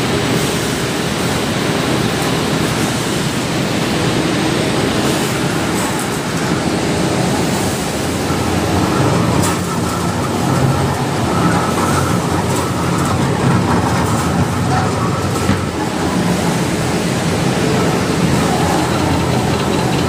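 Wire drawing line running: a loud, steady mechanical rumble and rattle, with a faint humming tone joining about halfway through.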